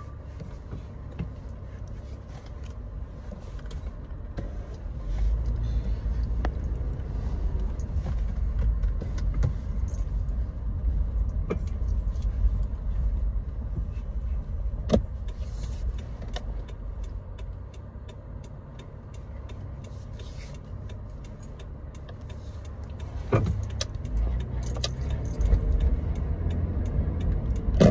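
Low rumble of a car heard from inside the cabin, swelling about five seconds in, easing off in the middle and building again near the end, with a few sharp clicks along the way.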